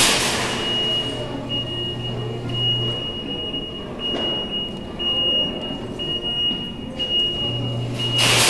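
Noisy store-entrance background around a claw machine. A thin, steady high electronic tone drops in and out over a general din, and a low hum runs for about the first three seconds and comes back near the end.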